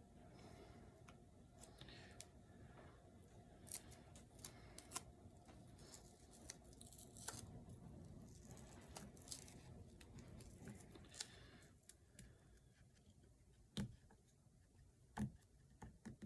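Faint handling sounds of an adhesive Frogzskin filter sheet and its peeled backing being worked by hand: scattered small crinkles and clicks, with a few sharper ticks near the end. A low steady hum underneath stops about twelve seconds in.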